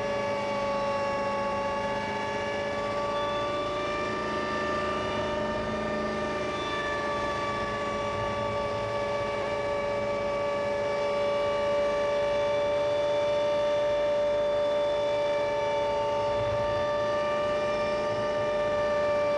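Hummingbird helicopter with a V8 engine, heard from the cockpit in flight: a steady whine of engine and drivetrain, several held tones over a noisy hum, its pitch drifting only slightly.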